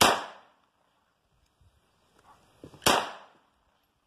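.380 semi-automatic pistol fired twice, about three seconds apart; each shot is a sharp crack with a short echo.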